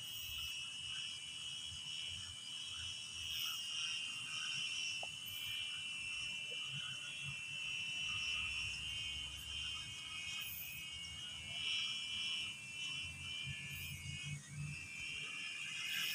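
Steady evening chorus of crickets and frogs: a continuous high-pitched trill that holds through, with a faint irregular low rumble underneath.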